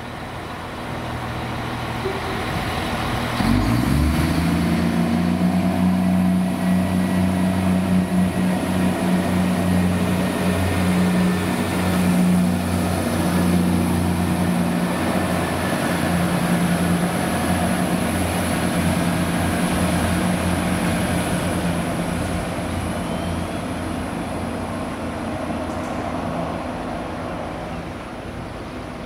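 Diesel passenger train's engine working under load as the train moves through just below. The engine note picks up sharply with a short rise in pitch about three and a half seconds in, then holds steady, easing off near the end.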